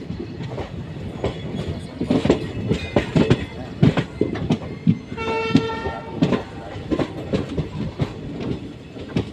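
Train moving through the station, its wheels clacking irregularly over rail joints and points. About halfway through, a horn sounds once for about a second.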